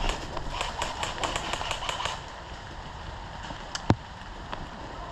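A quick run of sharp clicks, about seven a second, for about two seconds, then one single sharp click near the end.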